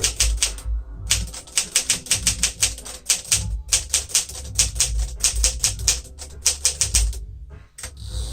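1957 Smith-Corona Silent-Super manual typewriter being typed on steadily, a fast run of key strikes with brief pauses about a second in and near the end.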